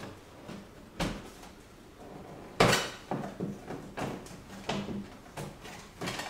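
Knocks and clatter of a Honda Goldwing 1500 SE's side panel being handled and worked loose by hand: a sharp knock about a second in, the loudest about two and a half seconds in, then a run of smaller knocks.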